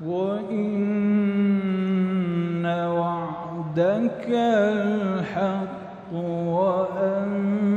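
A male Quran reciter's voice chanting in a long melodic tajweed phrase. It opens on a held note, then moves through ornamented turns of pitch, with a short breath about six seconds in.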